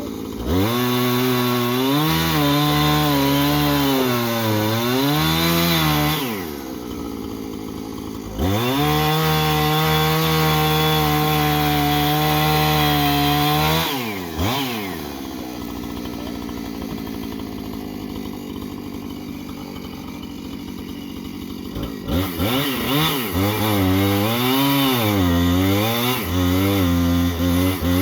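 Chainsaw cutting into a tree stump: the engine runs at high revs with its pitch sagging under load, drops back to idle twice, about 6 s and 14 s in, and revs up to cut again.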